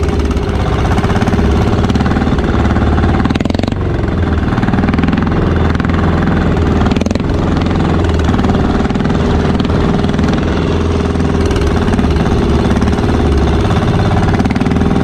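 Engine of a motorised outrigger boat (bangka) running steadily while under way.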